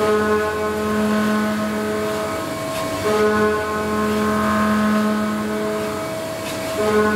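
Makino J L2 vertical machining center milling ductile cast iron with a 50 mm end mill: a steady, humming cutting tone with several pitches at once. It shifts briefly about three seconds in and again near the end.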